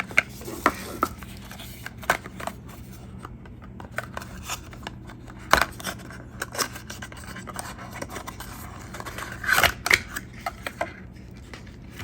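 A USB charging cable being taken out of its packaging by hand: scattered clicks, scratches and crinkling of packaging, with sharper snaps about five and a half and nearly ten seconds in.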